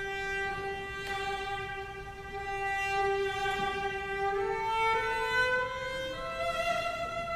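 Solo cello played with the bow in a slow melody: one long held note for about four seconds, then a rising line of notes.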